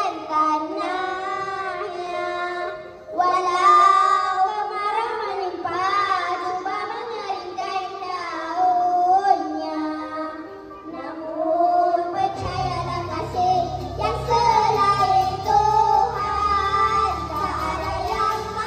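Children singing a song with backing music; a low bass accompaniment comes in about twelve seconds in.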